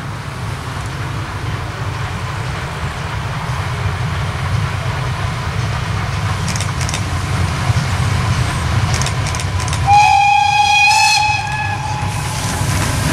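Class 58 steam locomotive 58 311 with its train approaching, the low running rumble growing steadily louder. About ten seconds in, the locomotive's steam whistle sounds one blast of about two seconds.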